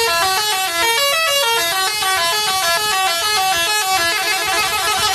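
Basuri telolet multi-tone horn on a bus playing a quick tune of short stepped notes, rising and falling.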